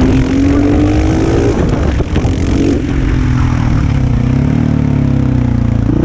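Husqvarna SM 610 supermoto's single-cylinder four-stroke engine under way. The revs climb for the first second and a half, drop just before the three-second mark, rise and fall briefly about four and a half seconds in, and then run steady.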